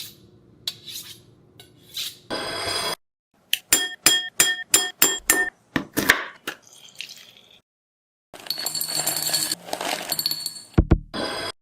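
A sequence of separate foley sound effects: a short burst of hiss, then a quick run of about eight sharp clinks that ring on with a clear tone, a few more knocks, and a longer stretch of rustling noise.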